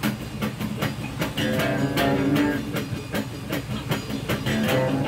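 Electric bass guitar played through a small battery-powered amp, a rhythmic riff of quick plucked notes. Generators run steadily underneath.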